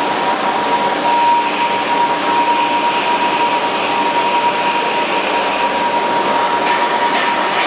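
Steady factory machinery noise with a thin whine held at one pitch, and a few light knocks near the end.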